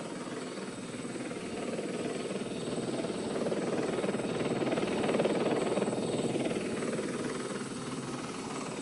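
Aircraft rotor noise: a dense, fast-pulsing whir that builds to its loudest about five seconds in and then eases off.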